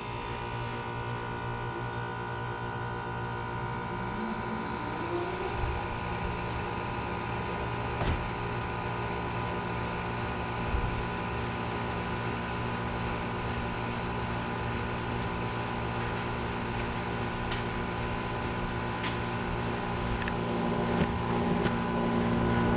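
York YCG 3-ton central air conditioner's outdoor condensing unit running with a steady hum, one tone rising about three to five seconds in as it comes up to speed, and a few faint clicks.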